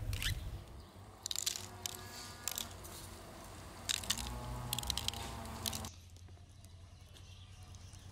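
Sesame seeds sprinkled by hand onto egg-washed bread dough and baking paper: several clusters of light ticks and crackles, with a faint pitched tone in the background for a couple of seconds. About six seconds in the sound drops abruptly to a quieter, even background.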